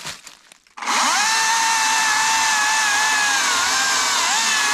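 Cordless electric Makita chainsaw whining up to speed less than a second in, then running steadily as it cuts into a thick log. Its pitch sags under the load of the cut near the end, then picks back up.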